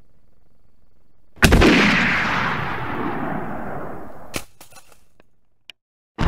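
A single rifle shot about a second and a half in, its echo fading out over about three seconds, followed by a sharp click.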